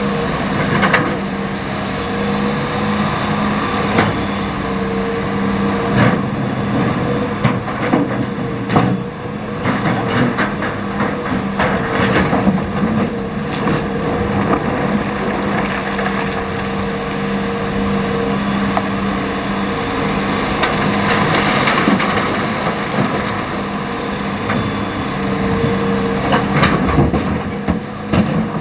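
Hitachi ZX200-5 hydraulic excavator's diesel engine running steadily under load while it digs river stones, with repeated clanks and knocks of the bucket scraping and dumping the rock.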